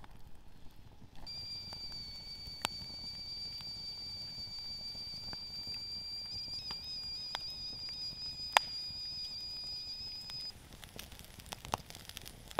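Campfire burning with a steady high whistle from about a second in that cuts off suddenly near the end: steam escaping from burning wood. Sharp crackling pops stand over it, the loudest a little past the middle.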